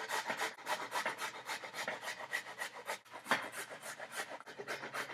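Peeled fresh ginger root scraped up and down on a metal box grater: a quick, even run of rasping strokes, about five a second, with a short break about three seconds in.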